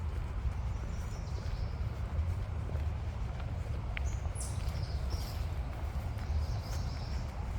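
Steady low rumble of wind on the microphone, with faint high bird chirps about a second in and again a few times in the second half.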